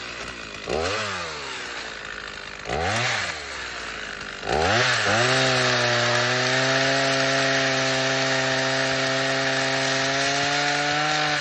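Husqvarna 50 Rancher two-stroke chainsaw blipped up and back down twice, then opened up to high speed about four and a half seconds in and held there steadily, cutting into dead American elm wood.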